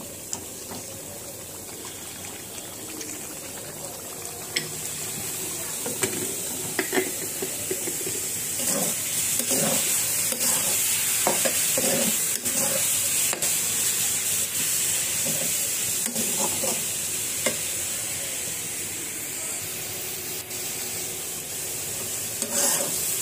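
Leafy greens (shak) sizzling as they stir-fry in a pan, with a metal spatula scraping and tapping against the pan. The sizzle grows louder about five seconds in and stays steady, broken by irregular clicks and scrapes.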